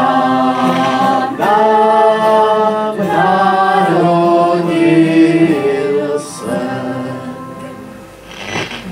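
A group of voices singing a Czech Christmas song without accompaniment, in long held notes, dying away near the end.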